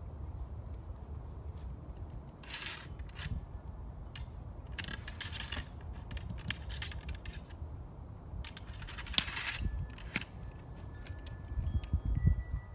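Steel ramrod of an 1853 Enfield rifle musket sliding and clinking in the barrel as the cartridge is rammed down, in three bouts of metallic scraping. Near the end there are a few low knocks as the rifle is handled.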